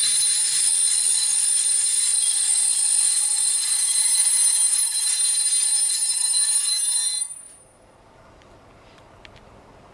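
Freight wagons of a passing container train, their wheels giving a steady high-pitched squeal of several tones held together. The squeal cuts off about seven seconds in, leaving only faint background for the last couple of seconds.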